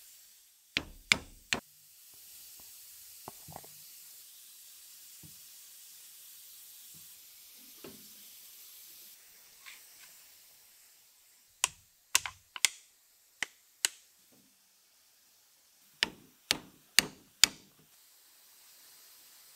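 Sharp clicks and knocks of Ford FE rocker shaft parts (rocker arms, springs and pedestals) being fitted back onto the shaft during reassembly. They come in three clusters of a few strikes each, about half a second apart, with quiet gaps between.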